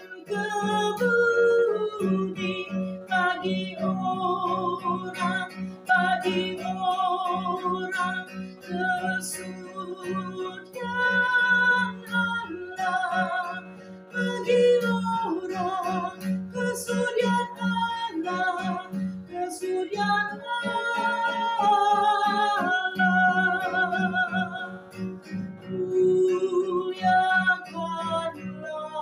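A woman singing a slow song, accompanying herself on an acoustic guitar. The guitar plays sustained chords under her voice.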